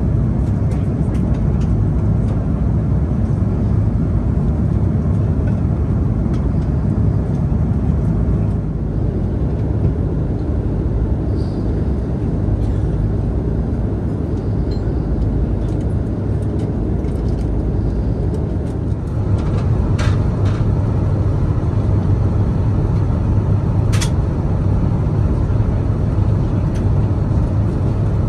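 Steady cabin noise of an Airbus A330 cruising at altitude: a constant drone of engines and airflow with a strong low hum. A few light clicks come through it, with a sharp click a few seconds before the end.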